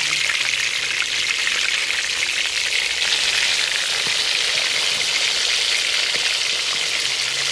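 Marinated fish pieces deep-frying in hot ghee in an aluminium pot: a steady, dense crackling sizzle.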